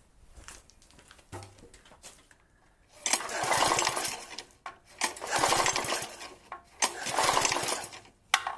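Pressure washer's small gasoline engine cranked with its recoil pull-starter: three pulls of about a second each, beginning some three seconds in, the engine turning over without firing while its spark is checked.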